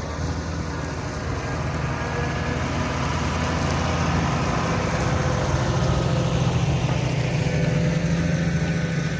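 New Holland T7.210 tractor engine running steadily under load while ploughing, a deep even hum that grows slightly louder over the few seconds.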